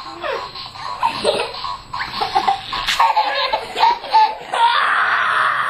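A baby laughing in short repeated bursts. Near the end, about a second of steady hissing noise comes in.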